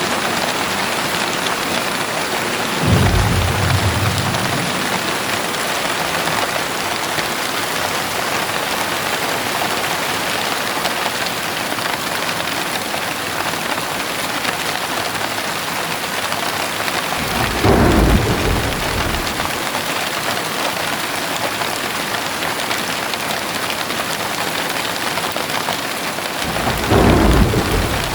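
Heavy rain falling steadily, with thunder rumbling low three times: about three seconds in, midway, and near the end, each rumble lasting a second or two.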